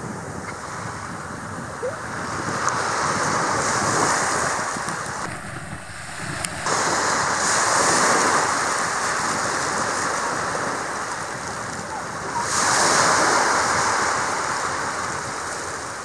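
Sea waves breaking on the shore, the rush of surf swelling three times, roughly every five seconds, with wind buffeting the microphone.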